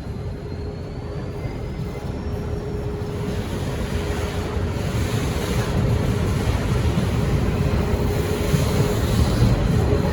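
Diesel freight locomotives approaching, a low engine rumble growing steadily louder with a thin steady hum over it.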